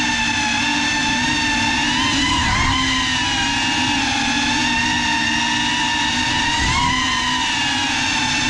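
GEPRC CineLog35 cinewhoop's brushless motors and ducted propellers whining steadily in flight. The pitch wavers briefly with throttle changes about two and a half seconds in and again near seven seconds.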